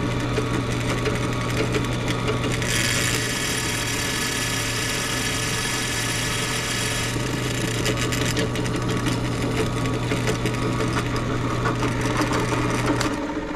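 Electric drill running steadily and drilling into metal, with a harsher cutting noise from about three to seven seconds in. The motor shuts off near the end.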